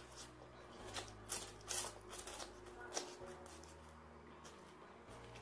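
Close-up eating sounds of instant noodles being eaten: a few short, sharp slurps and mouth noises, the clearest about a second and a half in, over a faint low hum.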